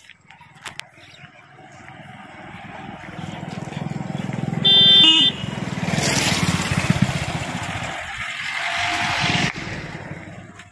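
A car driving up a narrow road and passing close by, its engine and tyre noise swelling and then fading. It gives one short horn honk about five seconds in, the loudest sound here.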